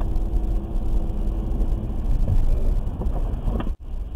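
Steady low rumble of engine and tyre noise on a wet road, heard inside the cabin of a car driving at moderate speed. The sound cuts out for an instant near the end.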